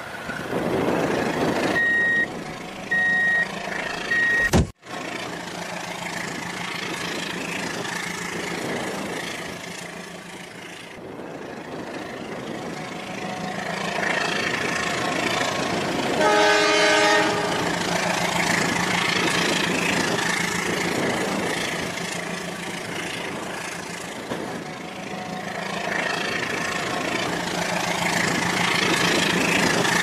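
Battery-powered toy train running on plastic track, its motor and wheels giving a steady whirring hiss. Three short electronic beeps sound a few seconds in, and a toy horn sounds for about two seconds in the middle.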